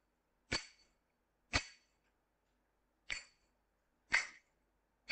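Finger cymbals (zills) muted with masking tape, struck together in single strokes: four short metallic clinks roughly a second apart, and a fifth right at the end, each ring cut off quickly by the tape.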